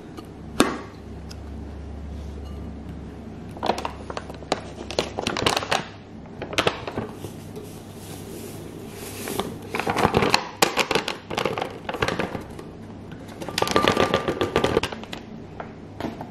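Glass lid clinking once against a glass canister, then a packet crinkling and rustling in the hands in several bouts while a white powder is poured into the glass jar with a soft hiss.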